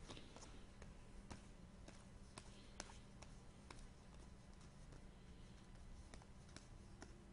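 Near silence with faint scattered clicks and light ticks of trading cards and card packs being handled, over a low steady hum.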